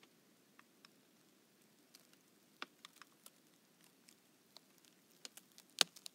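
Thawing lake ice crackling: scattered sharp ticks and pops at irregular intervals, the loudest near the end, as the thinning ice shifts and flexes in a light breeze.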